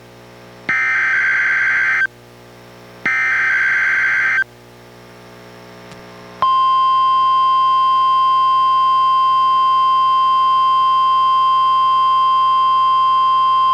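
NOAA Weather Radio Required Weekly Test signals: two screechy SAME digital header bursts, each about a second and a half long with a short hiss between them. About six and a half seconds in, the steady single-pitch 1050 Hz NWR warning alarm tone starts and holds without a break.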